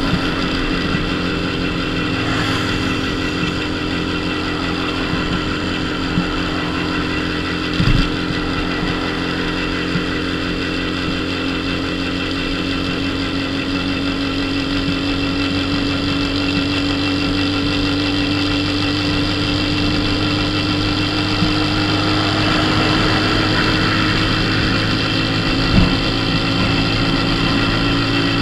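Dafra Super 50cc moped engine running steadily at cruising speed, its pitch creeping slowly upward. Two brief thumps, one about eight seconds in and one near the end.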